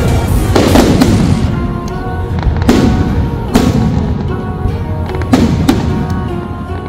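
Aerial firework shells bursting overhead in a run of sharp bangs, the biggest about half a second in and more spread through the rest, each echoing briefly. Music plays steadily underneath.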